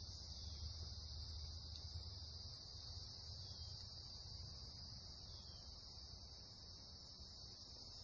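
Faint, steady chorus of crickets: a continuous high trill that never breaks, over a low rumble.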